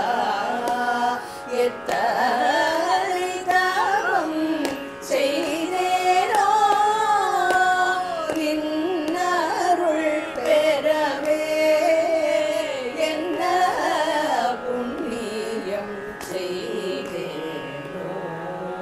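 A group of women singing a Tamil devotional song together in Carnatic style over a steady drone.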